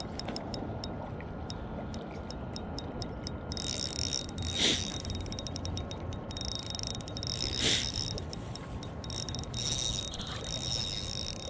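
Spinning reel being cranked to bring in a hooked fish, its gears clicking rapidly, with two short louder bursts near the middle.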